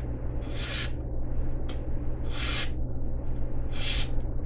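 MKM Flame Light folding knife's blade slicing through a paper banknote in three short strokes about a second and a half apart, over a steady low hum.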